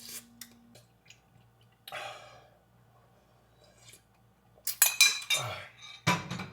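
Clinks of dishware and a few sips of chicken broth, ending with a sharp knock of a cup or bowl being set down about six seconds in.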